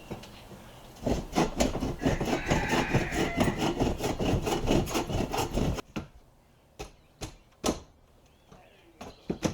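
Hand bow saw cutting through a wooden 2x4 stud in quick, even back-and-forth strokes, about three or four a second. The strokes stop abruptly about six seconds in, and a few single knocks of wood follow.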